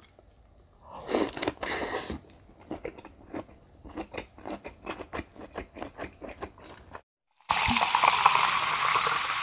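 Close-miked mouth sounds of a person biting into grilled giant river prawn meat, then chewing it wetly in quick soft clicks, about four to five a second. After a short silence, a louder steady rushing noise starts near the end.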